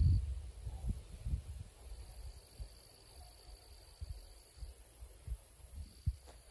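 Wind buffeting the microphone outdoors, an uneven series of low rumbling gusts that is strongest at the start and then comes and goes more faintly.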